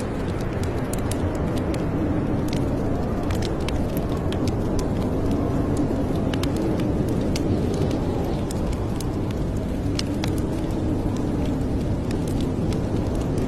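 Wood fire in a fireplace crackling: sharp, irregular pops and snaps over a steady low rumble.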